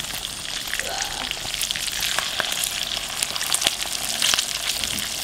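Oil sizzling steadily around pieces of raw eel frying in a small cast-iron skillet of ajillo over an open flame, with many small crackling pops.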